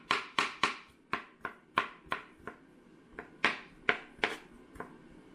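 Kitchen knife mincing hen-of-the-woods (maitake) mushroom on a plastic cutting board: a run of sharp chops, irregularly spaced at about two to three a second.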